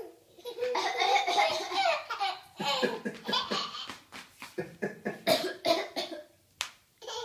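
A person coughing repeatedly: a rough stretch, then a run of short coughs, with a baby laughing along.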